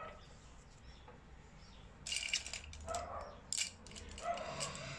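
A dog barking faintly, about four barks spaced well under a second apart, starting about two seconds in.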